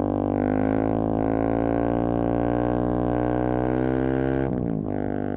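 Intro music: a steady, low buzzing drone with many overtones, held at one pitch and then sliding briefly near the end.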